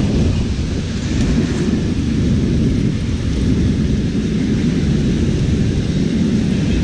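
Strong, gusty wind buffeting the microphone: a loud, steady low rumble that flutters constantly.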